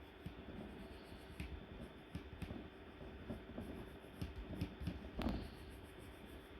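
Light scratching and small scattered taps of a drawing tool on a drawing surface, with a louder soft thump about five seconds in.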